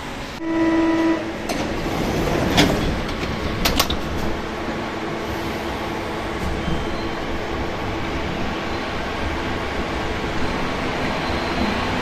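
Rubber-tyred metro train at a station: a short electronic warning tone, a few knocks as the doors shut, then steady running noise with a faint motor whine as the train pulls out.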